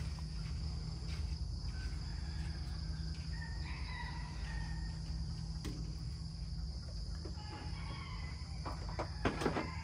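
A rooster crowing faintly a couple of times over a steady high-pitched insect drone and a low rumble, with a few sharp clicks near the end.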